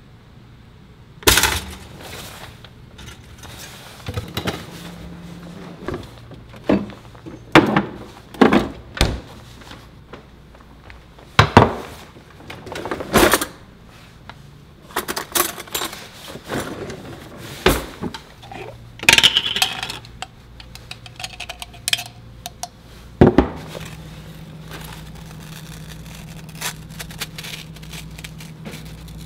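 Kitchen handling sounds as toast is made: a string of separate sharp clacks and knocks, with cutlery and dishes clinking and a knife taken from a cutlery drawer. A low steady hum comes in over the last few seconds.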